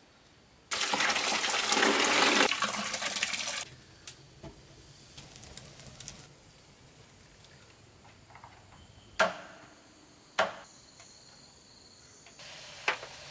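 A rush of water for about three seconds, poured or splashing, then a quiet stretch broken by two sharp knocks a little over a second apart.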